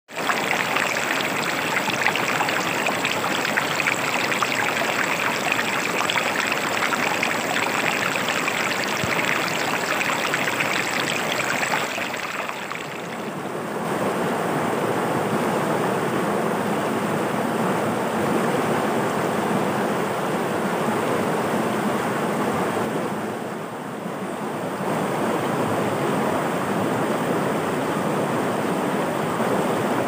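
Shallow river rapids rushing over rocks and boulders, a steady rush of water. It is hissier at first, dips briefly twice, and turns to a deeper, fuller rush after the first dip.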